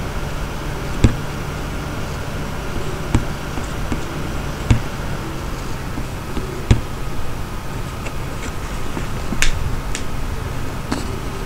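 Steady low hum and hiss with about six sharp, separate clicks scattered through it.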